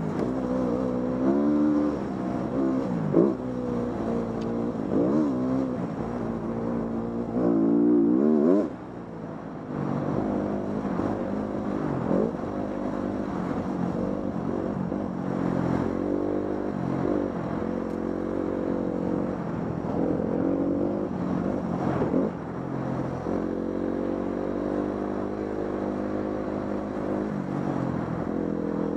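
Dirt bike engine under way, its pitch rising and falling as the throttle opens and closes and the rider shifts. It revs high, then drops off sharply about a third of the way through, with a few short knocks along the way.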